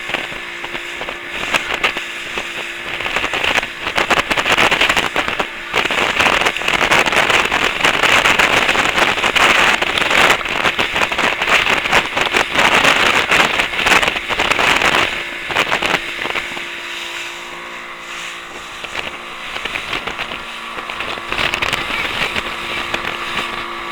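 Motorboat engine running under way, with a steady hum and the rush of water and wind. It grows louder about four seconds in and eases off again around fifteen seconds.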